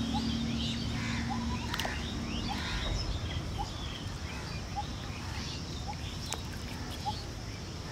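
Several birds chirping and calling, one repeating a short note about once a second, over a low wind rumble on the microphone. A steady low hum fades out in the first two or three seconds, and there are a couple of sharp clicks.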